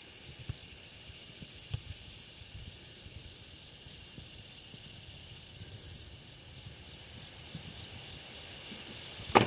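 A chorus of insects trilling high and steady, pulsing several times a second and growing louder. A sharp click comes near the end.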